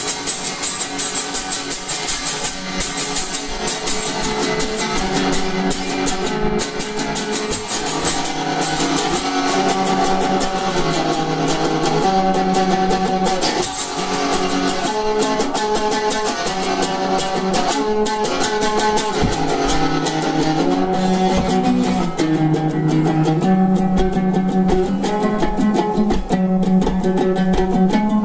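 Guitar music without singing: an instrumental guitar passage of plucked and strummed chords.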